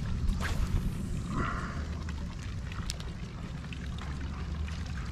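Water sloshing and gurgling against a small fishing boat's hull over a steady low rumble, with a few light clicks.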